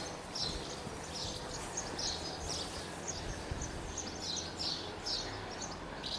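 Small birds chirping over and over, a couple of short high calls every second, over steady outdoor background noise.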